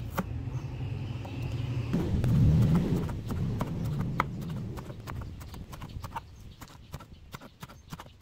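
Kitchen knife slicing garlic and then green onion on a plastic cutting board: a run of quick, irregular knocks of the blade on the board. A low rumble runs under them, loudest in the first few seconds.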